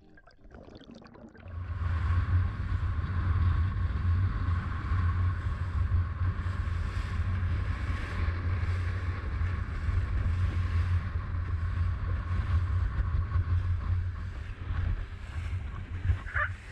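Motorboat running at speed: a steady low engine and hull drone with wind and water rushing past, fading up over the first second or so.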